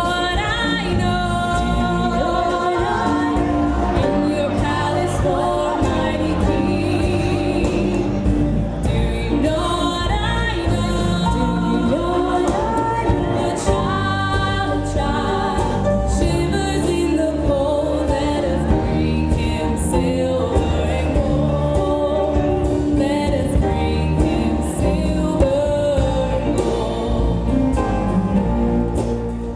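Music: a song sung by voices over instrumental accompaniment with a steady bass line, in a gospel style.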